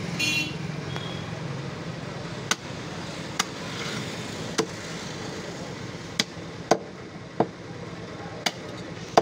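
Heavy butcher's cleaver chopping through a lamb's head and bone on a wooden log block: about eight sharp, irregularly spaced blows over a steady low background hum.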